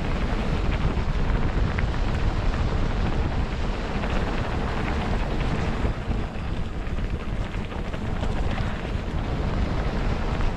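Wind rushing over the microphone of a mountain bike in motion on a trail, a steady low buffeting with scattered small ticks and knocks from the bike over the ground.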